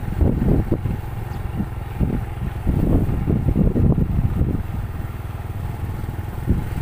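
Motorcycle running at riding speed, with wind buffeting the microphone in uneven gusts.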